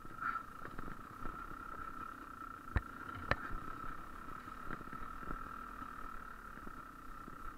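GasGas EC300 300cc two-stroke single-cylinder engine running at low, steady revs while the bike is ridden. Short knocks come through, with two sharper ones about three seconds in.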